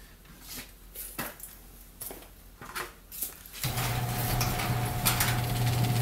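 Light clicks and clatter of items being handled. About two thirds of the way in, a screw-drive garage door opener starts up and runs with a steady hum, raising the door.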